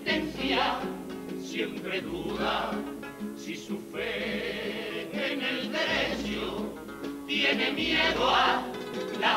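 Male comparsa choir singing together in harmony, accompanied by strummed Spanish guitars.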